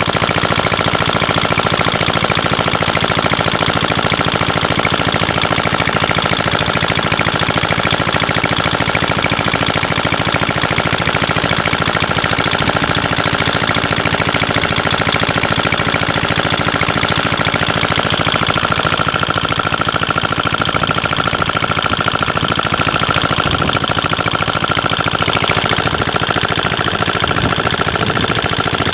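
An engine running steadily at speed, with a fast, even rattling beat and a steady whine over it.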